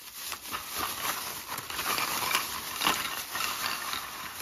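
Thin clear plastic bag crinkling and rustling as it is untied and pulled open by hand, with many small crackles.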